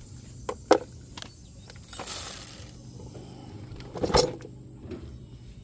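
Metal hand tools being handled while refitting a brake caliper: a few sharp clicks of a socket ratchet and hardware, a rough scraping rustle about two seconds in, and a louder metallic clank about four seconds in.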